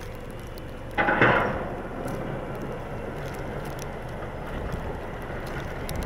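Snowplow trucks and cars driving along a snow-covered road: a steady low rumble of engines and tyres in slush. About a second in comes a sudden loud noise that dies away within half a second.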